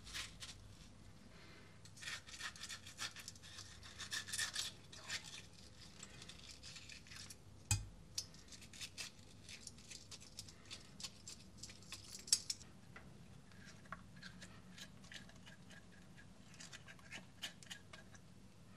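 A ripe tomato being cut open and hollowed out with a metal spoon: a run of quick, soft scraping strokes, busiest in the first twelve seconds, with one knock about eight seconds in.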